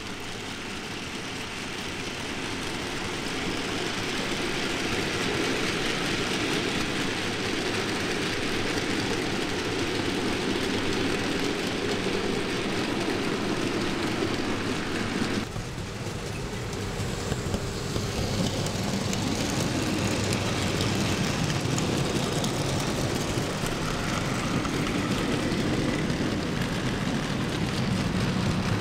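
OO gauge model freight train running, hauled by a Heljan Class 33 model diesel locomotive: a steady whirr of the motor and wagon wheels rolling on the track, growing louder over the first few seconds. The sound changes abruptly about halfway through.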